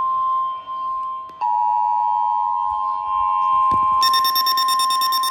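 Overlapping Emergency Alert System alarm tones: the steady single-pitch National Weather Service warning tone, joined about a second and a half in by the lower two-tone EAS attention signal, and about four seconds in by a rapid, high, pulsing electronic chatter.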